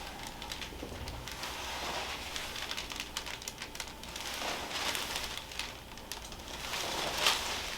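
Soft rustling with many faint little crackles, swelling a little about halfway through and again near the end: hands and clothing shifting on the patient and the chiropractic treatment table, with no joint crack.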